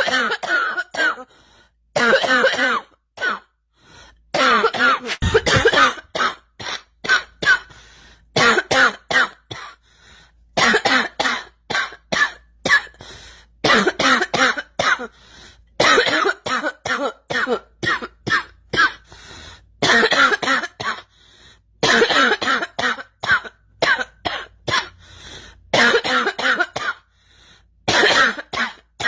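A girl coughing in repeated fits, each fit a quick run of several coughs, with a fresh fit every two to three seconds.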